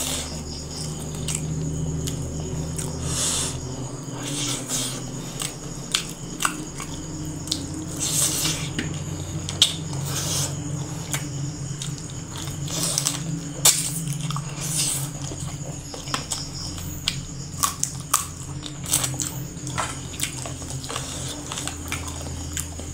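Close-up chewing and lip-smacking as a person eats rice and chicken curry by hand, with many short wet mouth clicks and smacks.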